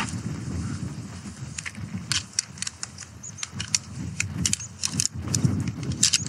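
Metal shock-corded tent pole sections clicking and clinking as the pole is pulled out and folded up, many sharp clicks from about a second and a half in. They sound over a steady low rumble.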